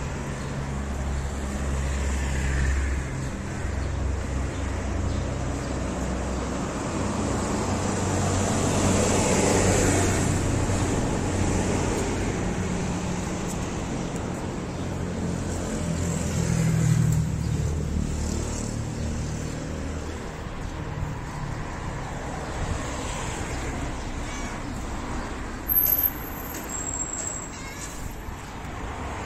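Street traffic: a steady low rumble of road vehicles, with passing cars swelling and fading. A brief high-pitched beep sounds near the end.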